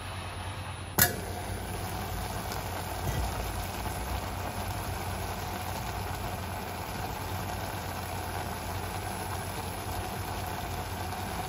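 A stainless-steel pan lid clinks once about a second in as it is lifted, then a steady sizzle of noodles and vegetables frying in the open pan.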